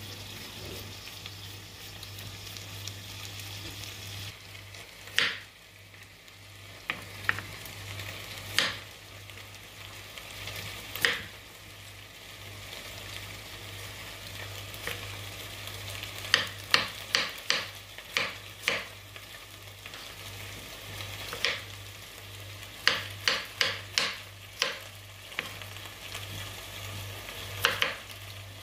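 A kitchen knife chopping through a carrot onto a wooden cutting board: sharp knocks, single at first, then in quick runs of four or five strokes. A steady hiss runs underneath.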